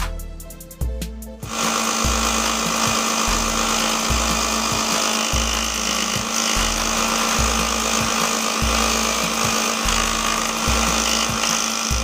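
Bench belt sander sanding a carved wooden workpiece held against its belt: a steady abrasive hiss that starts about a second and a half in and holds on, over background music with a regular bass beat.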